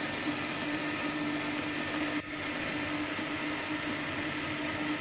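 Electric countertop blender running steadily, churning a liquid tamarind-and-plum mixture in its glass jar, a steady motor hum with a brief dip about two seconds in.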